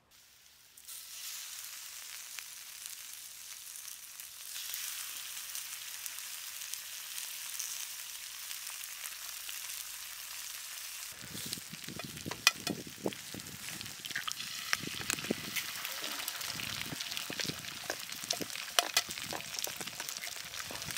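Bacon, peppers and onions sizzling in small frying pans over campfire coals, a steady hiss that grows louder about four seconds in. From about eleven seconds in, a wooden spatula stirring and scraping in the pans adds knocks and sharp clicks over the sizzle.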